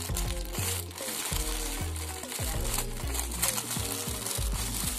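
Tissue paper gift wrap crinkling and rustling as it is pulled open by hand and its tape peeled away, over background music.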